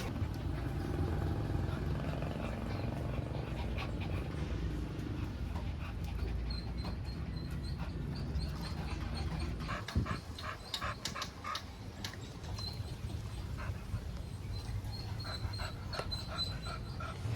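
A pet dog panting close by, with short light clicks now and then.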